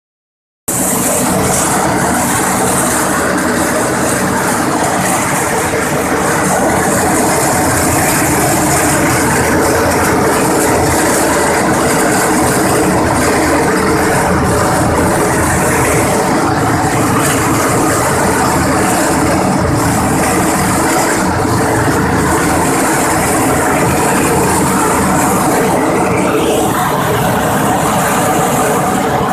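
Clove sieving machine running steadily, its drive humming under a constant high hiss and rattle; it starts abruptly about a second in.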